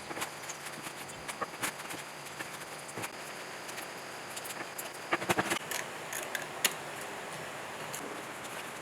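Scattered light clicks and scrapes of hand work on the electric motor, with a quick cluster of sharper clicks about five seconds in and one more near the end, over a steady faint hiss.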